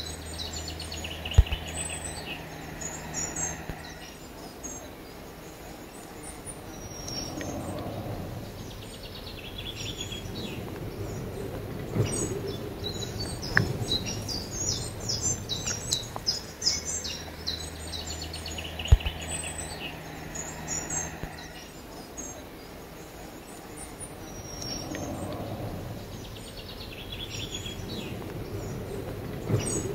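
Small songbirds chirping and twittering over a steady outdoor background with a low hum in places, and a couple of sharp clicks. The same stretch of birdsong recurs about every 17 seconds, like a looped ambience recording.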